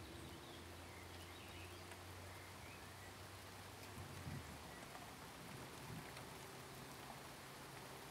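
Near silence: faint steady hiss and low hum of room tone, with a soft low bump about four seconds in and another near six.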